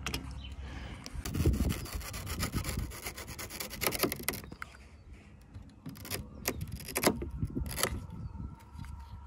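Utility knife sawing through a tightly tensioned seat-belt strap with rapid rasping strokes, in two spells with a short pause between.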